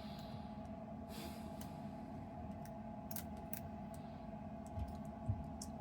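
Lock pick working the pins of an ABUS Titalium 64TI/40 padlock during single-pin picking: scattered small metallic clicks and a brief scrape about a second in, over a steady low hum. The picker judges that the pins are being overset.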